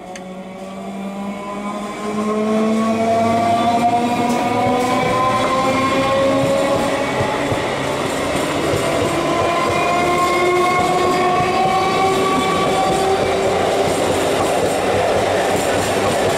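Old conventional EMU electric local train pulling away: its traction motors whine in several tones that rise steadily in pitch, over wheel rumble and rail clatter. The sound gets louder about two seconds in as the coaches come alongside, and near the end the whine drops back and starts rising again.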